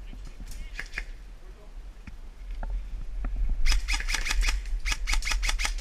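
A rapid string of airsoft gun shots, about five sharp snaps a second for two seconds, starting past the middle. A few single snaps come in the first second, over a steady low rumble.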